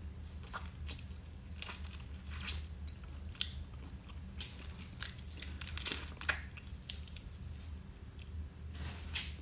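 Boiled crawfish being peeled and eaten: scattered small cracks of shell and chewing, over a steady low hum.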